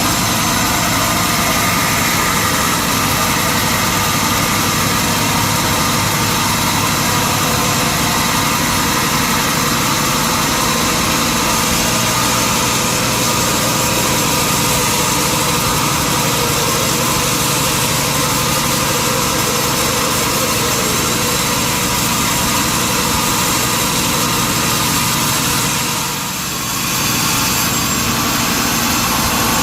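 Sawmill machinery running steadily, with a brief dip in level near the end.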